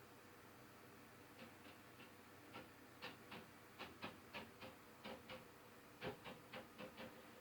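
Faint, sharp tapping through the ceiling from the unit upstairs, a quick, slightly irregular run of about three taps a second that starts about a second and a half in and grows a little stronger.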